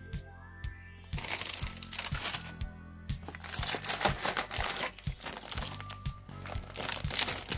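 Clear plastic bags around model kit runners crinkling and rustling as they are handled, over steady background music.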